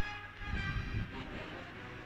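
Flipkart SmartBuy Alpine tower air cooler running, its fan drawing air through the honeycomb cooling pad while the pump keeps water flowing over it. A sharp knock comes right at the start.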